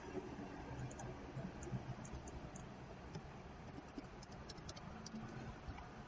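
Faint clicks of a computer mouse and keyboard while a command is entered: scattered light ticks in two clusters, one about a second in and another near the five-second mark, over a low steady hum.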